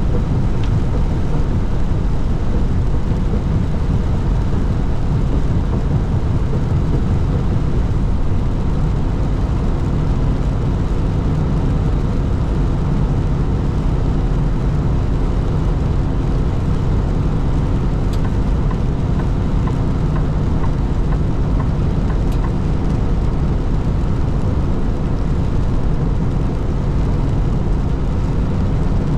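Steady low engine drone and road noise inside a truck cab driving at highway speed.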